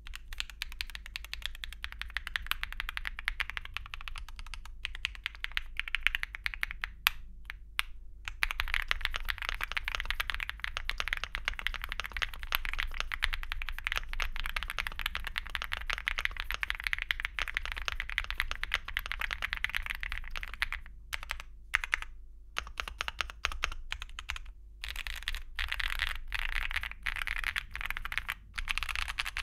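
Typing on an Akko MOD007 v3 mechanical keyboard with MMD Princess V4 linear switches, an FR4 plate and PBT Cherry-profile keycaps, a sound called "creamy". It is a fast, continuous run of keystrokes that thins to slower, separate presses about a quarter of the way in and again about two-thirds of the way in.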